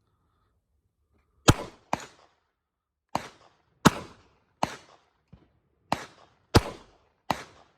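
Ruger Max-9 9mm pistol fired in a string of eight shots, spaced roughly half a second to a second apart, starting about a second and a half in.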